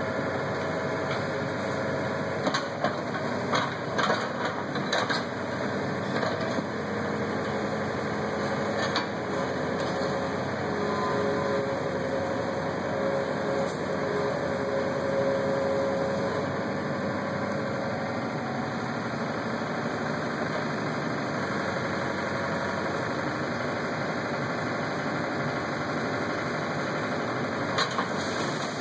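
Komatsu PC75UU-2 mini excavator's diesel engine running steadily while digging. A few sharp clanks and knocks in the first few seconds and again near the end, with a whine held over the engine for a few seconds around the middle.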